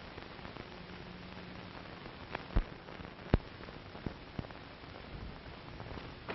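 Steady hiss of an old 1930s film soundtrack, with a few sharp clicks or knocks, the two loudest about two and a half and three and a half seconds in.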